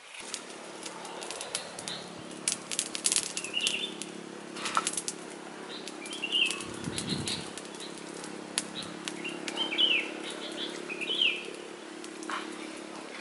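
Dry crackling and crinkling of a charred banana skin being peeled by hand, in irregular clusters of sharp clicks. Short chirps sound now and then, and a steady low hum runs underneath.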